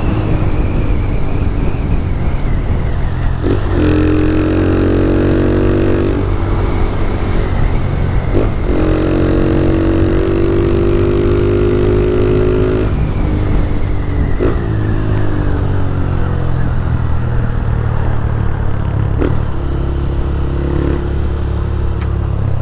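160 cc motorcycle engine under the rider, pulling up through the gears: the pitch climbs in each gear and drops at a short break for each shift, about every five seconds, then eases off and runs steadier near the end.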